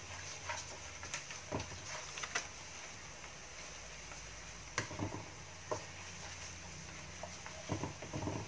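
Wooden spatula scraping and knocking against a wok as sliced onions and garlic are stirred with soup spice: irregular soft scrapes and taps.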